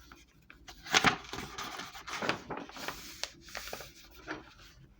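Soft handling noises: scattered light clicks and rustles, the loudest about a second in.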